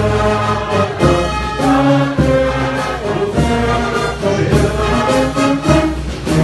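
A church brass band playing praise music: brass instruments hold chords over a steady beat.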